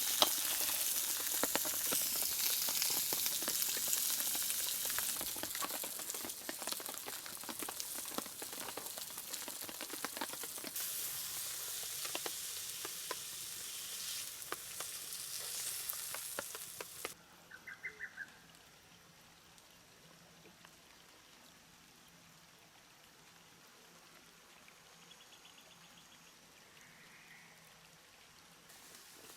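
Steak sizzling over a campfire, a steady hiss dotted with many small crackles and pops. A little past halfway it cuts off sharply, leaving faint forest ambience with a brief trilling animal call and a few fainter calls.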